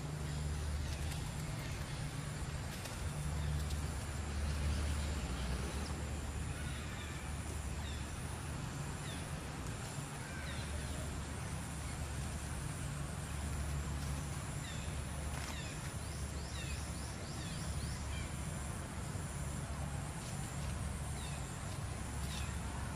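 Woodland ambience: a steady low hum underneath, a constant high thin insect drone, and short falling bird chirps repeating through the second half.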